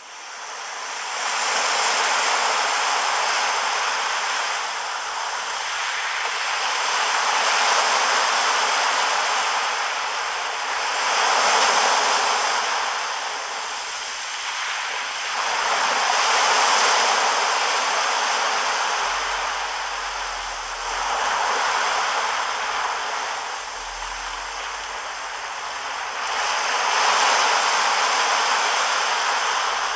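Surf breaking on a sandy beach: a steady rush of waves that swells and eases every few seconds.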